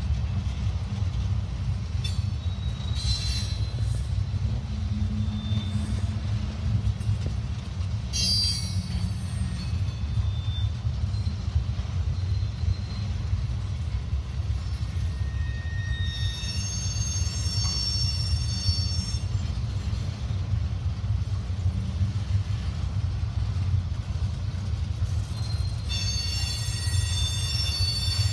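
Freight cars rolling past on the rails: a steady low rumble of wheels on track. High-pitched wheel squeal rings out about sixteen seconds in and again near the end.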